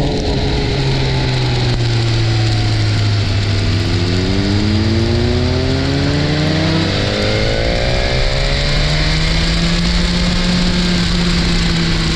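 Motorcycle engine running at road speed over a steady rush of wind noise. Its pitch climbs for a few seconds under acceleration, drops back about seven seconds in, then holds steady.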